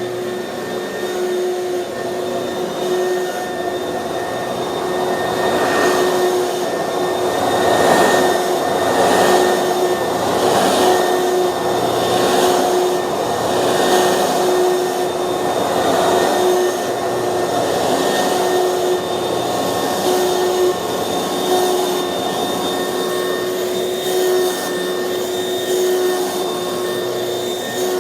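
Oreck XL upright vacuum cleaner running on a living-room carpet: a steady motor whine under a rushing airflow that swells and fades about once a second as it is worked back and forth, strongest through the middle.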